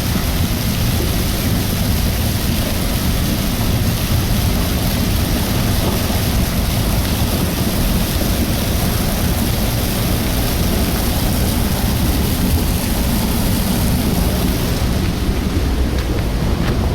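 Debris flow surging down the Illgraben channel: a loud, steady, deep rumble of mud, water and rock that hardly changes, with a few faint knocks near the end.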